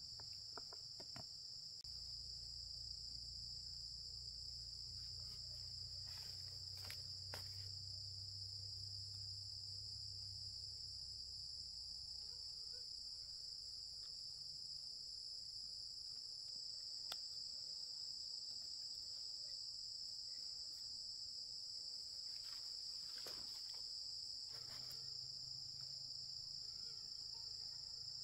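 Steady high-pitched chorus of insects, with a few faint clicks and knocks now and then.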